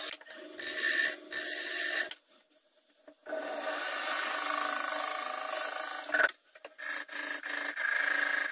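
Wood lathe turning a small wooden blank, a hand-held turning tool scraping and cutting the spinning wood with a steady rasping hiss. The sound breaks off into near silence about two seconds in and drops again briefly after six seconds, with a sharp click.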